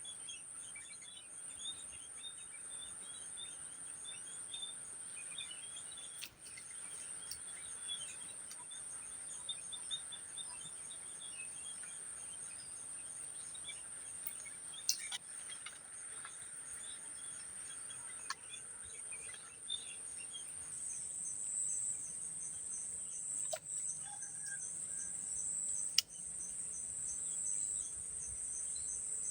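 Insects droning, a steady high-pitched tone that grows louder about two-thirds of the way through, with birds chirping and a few sharp clicks.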